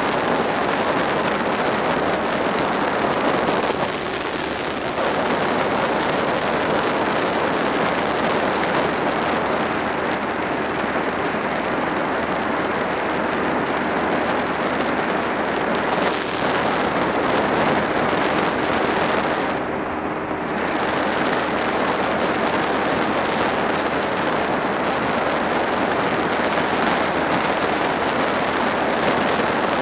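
Riding noise from a Suzuki SV650 at speed: steady wind rush over the microphone with the V-twin engine running underneath. The noise eases briefly twice, about four seconds in and again about twenty seconds in.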